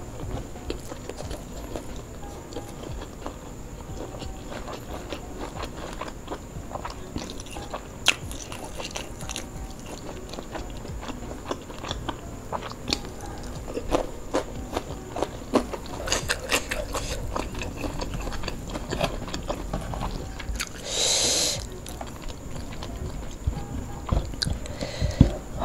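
Close-miked chewing and mouth sounds of a person eating fried duck, rice and cucumber with sambal, with scattered wet clicks and smacks. A brief hissing sound about three-quarters of the way through is the loudest moment.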